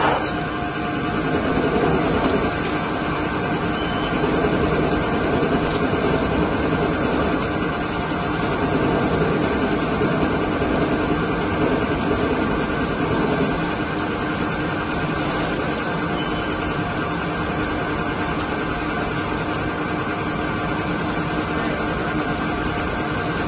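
CNC lathe turning a bar under flood coolant: a steady mechanical hum with the hiss of coolant spray and a few steady tones, a little louder during the first half.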